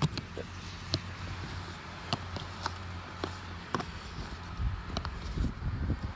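Footsteps crunching in snow, roughly one a second, over the low steady hum of the car's idling engine. Wind buffets the microphone with low rumbling near the end.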